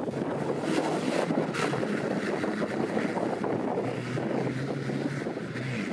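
Off-road 4x4's engine running with a steady low hum, mixed with heavy wind rumble on the microphone.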